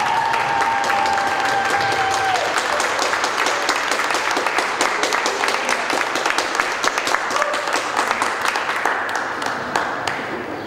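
Crowd of spectators applauding, the clapping thinning into fewer, more separate claps and fading near the end.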